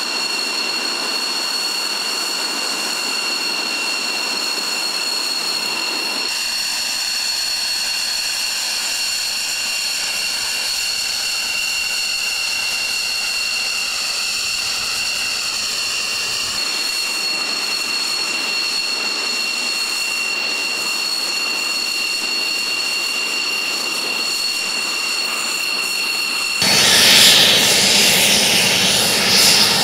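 X-47B unmanned jet's turbofan engine running on deck: a steady high-pitched whine of several pure tones over a rushing hiss. About 27 seconds in it grows louder and rougher as the aircraft taxis past close by.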